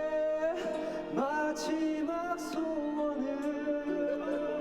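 Karaoke singing of a slow ballad over its backing track, with long, held notes.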